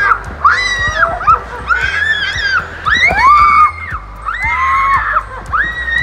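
Background music: an upbeat track with a steady bass, a gliding, sustained melody and a light ticking beat.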